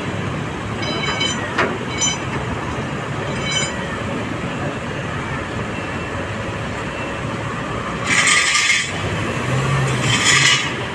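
Steady street traffic and vehicle engine noise, with a few short high beeps in the first few seconds and two loud bursts of hiss near the end.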